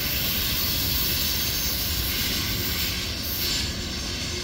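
Freight train cars rolling past on the rails: a steady, even rumble of wheels with a high hiss over it.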